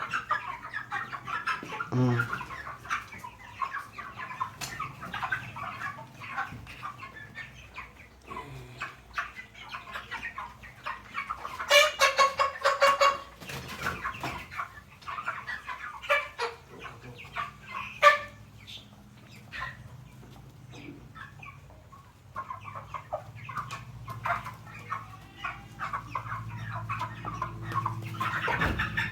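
A flock of chickens in a poultry house clucking and calling, with one louder drawn-out call about twelve seconds in. A low hum joins in for the last few seconds.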